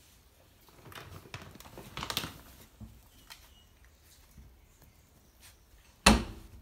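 Puppy rustling and scrabbling at a plastic bag of dry dog food, in short bursts with light taps, then a single sharp knock near the end.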